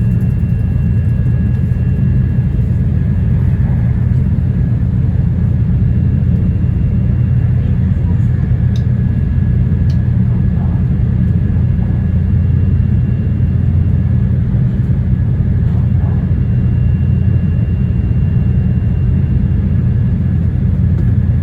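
Interior running noise of a JR East E2 series Shinkansen at speed: a steady low rumble with a faint, steady high whine over it.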